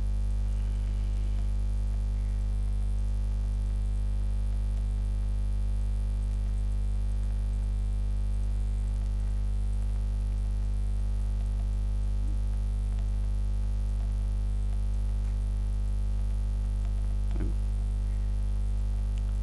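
Steady electrical mains hum with a buzzy stack of overtones, unchanging throughout: interference in the microphone's recording chain.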